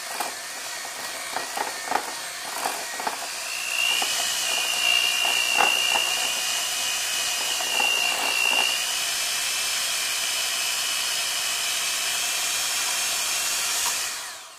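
Electric hand mixer beating softened cream cheese and butter in a glass bowl, with the beaters clicking against the bowl in the first few seconds. About four seconds in it gets louder and a higher whine joins it; it then runs steadily and cuts off just before the end.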